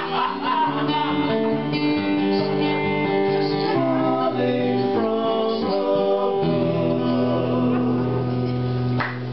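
Acoustic guitar and male voices singing a slow song in long held notes, with a chord change about six and a half seconds in and the music stopping about nine seconds in.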